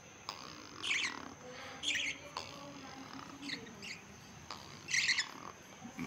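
Budgerigar chicks chirping: four short, high chirps spread over a few seconds.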